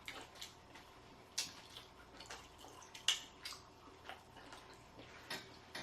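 Soft, irregular clicks and smacks of people eating in a pause between remarks, a few every second.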